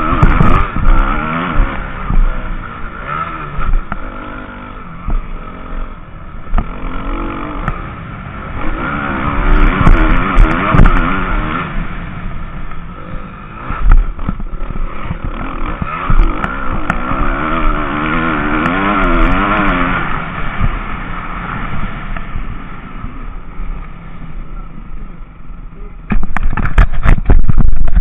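Onboard sound of a motocross bike's engine racing on a dirt track, its revs rising and falling again and again as the rider accelerates and backs off, with clatter from the bumps. Near the end comes a very loud burst of knocking.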